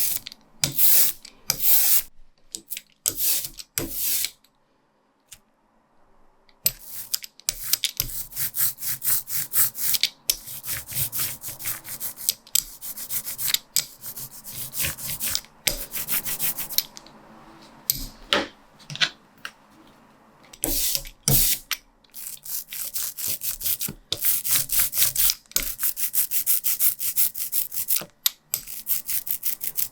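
Soft rubber brayer rolled back and forth through tacky relief ink, a sticky crackling hiss with each stroke in a quick, even rhythm. The rolling stops for about two seconds early on, then runs on.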